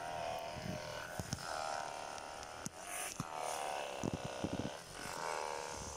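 Handheld electric massager's motor buzzing against the leg, its hum swelling and fading about three times, with a few scattered soft knocks.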